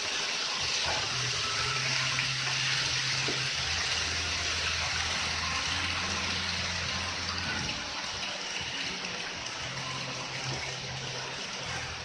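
Model train rolling past on the layout track: a steady whirring hiss of wheels on rail, with a low motor hum that drops away about two-thirds of the way through and returns near the end.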